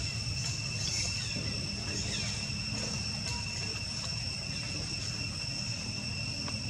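Steady high-pitched insect chorus, two even tones held without a break, over a low steady rumble.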